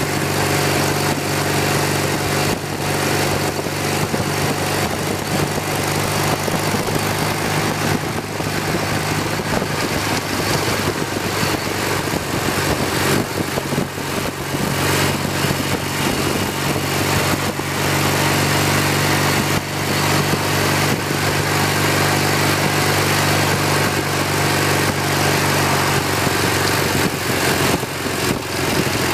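1981 BMW R65's air-cooled flat-twin engine running steadily at road speed, with heavy wind rush over the bike-mounted microphone. The engine note eases off briefly a couple of times, about halfway through and again a few seconds later.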